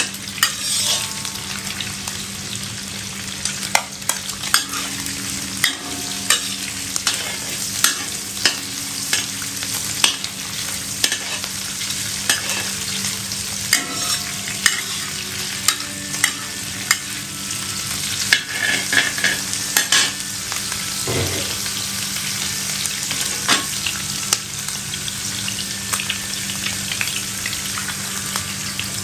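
Food sizzling in a hot frying pan while being stirred, with frequent sharp clicks and scrapes of the spatula against the pan.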